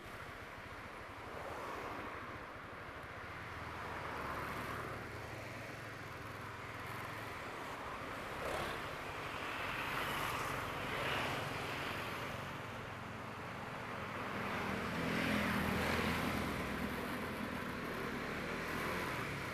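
Road traffic: vehicles passing one after another, the noise swelling and fading several times over a low engine hum.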